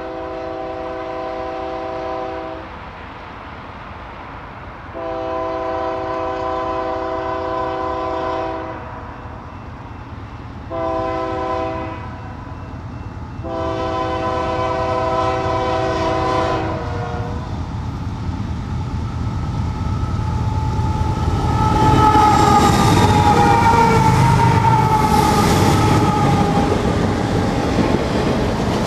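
Union Pacific freight train's lead diesel locomotive, C44ACM 6372, sounding its air horn in the grade-crossing pattern: the tail of one long blast, then long, long, short, long. After that the train's engines and steel wheels on the rails grow louder and pass close, loudest from about two-thirds of the way in, as the autorack cars roll by.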